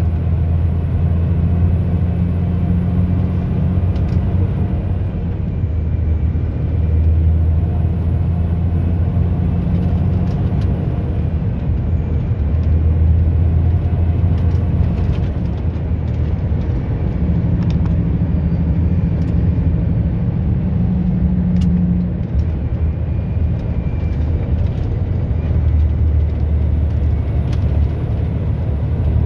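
Vehicle engine and road noise while driving: a steady low rumble with an engine hum that shifts a little in pitch and strength as it goes.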